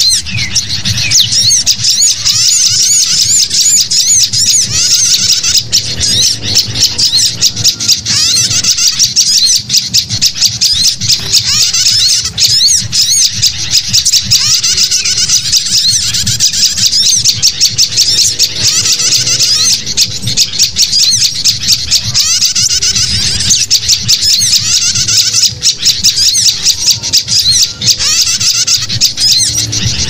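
A mixed bird-lure recording: sooty-headed bulbuls calling in agitated alarm together with sunbird and prinia chirps, a dense, loud chatter of rapid high notes with no break.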